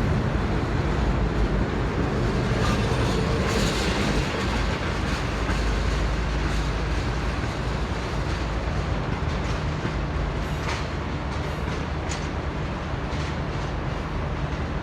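Diesel-hauled passenger train running along the track: a steady rumble with irregular sharp clicks of wheels over rail joints, slowly fading.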